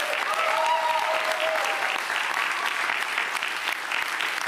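A crowd applauding, with voices cheering over the clapping for the first second or so, then steady clapping.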